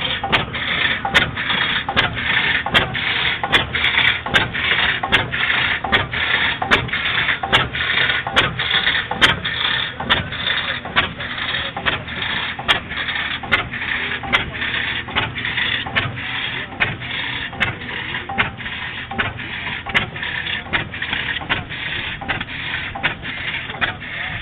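Bessemer half-breed oilfield engine running, with a steady rhythm of sharp clicks from its moving parts over a constant hiss.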